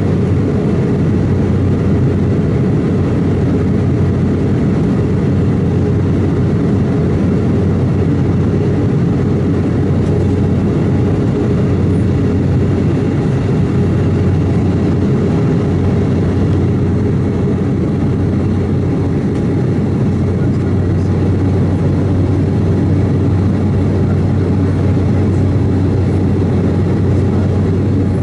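Steady, deep cabin drone of an Embraer 190 airliner in flight, from its two wing-mounted GE CF34 turbofan engines and the airflow over the fuselage, heard from inside the cabin, with a constant low hum under it.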